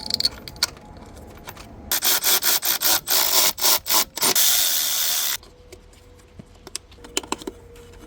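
Cordless electric ratchet driving in a 10 mm coil pack bolt. It runs in quick stuttering bursts for about two seconds, then holds on for about a second and cuts off. Light clicks of metal parts being handled come before and after.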